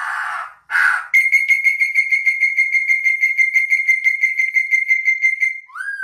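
Songbird giving two short harsh rasping notes, then a long whistle held on one pitch with a fast flutter for about four seconds, ending in a short note that rises and falls.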